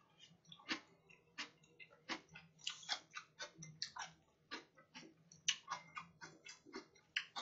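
Close-miked chewing of a mouthful of oyster pancake: an irregular run of wet mouth clicks and smacks, about three a second, over a faint low hum.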